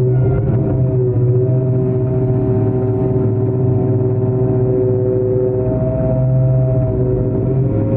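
Long-arm excavator's diesel engine running steadily, a constant droning hum whose pitch lifts slightly for a couple of seconds past the middle.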